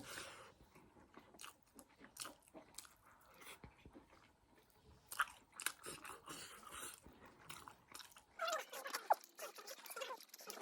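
Close-miked eating sounds: chewing and biting food, with many small wet mouth clicks. About two seconds before the end the sound changes abruptly to louder, scratchier noises.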